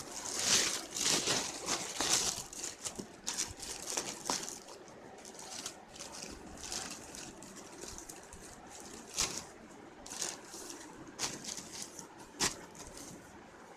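Packaging being handled and opened: crinkling and rustling, busiest in the first few seconds, then scattered clicks and rustles.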